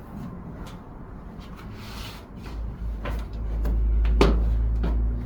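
Chiropractic adjustment: a few sharp clicks over a low rumble of body and treatment-table handling. The loudest click comes about four seconds in.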